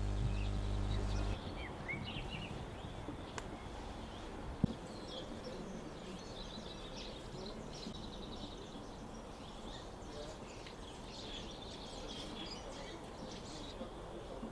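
Quiet outdoor ambience with small birds chirping repeatedly among trees and bushes, and a single sharp click about four and a half seconds in.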